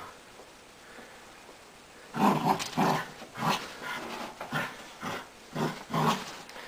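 A dog play-growling over a tug toy: a quick series of short, gruff growls, about two a second, starting about two seconds in.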